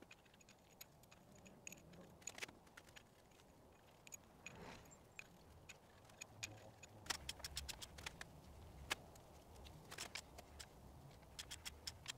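Faint, scattered metallic clicks and taps as cylinder head studs are handled and threaded into a VW engine block, coming more often in the second half.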